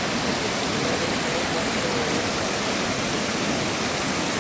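Big Thompson River floodwater rushing past, a loud, steady wash of water noise with no letup.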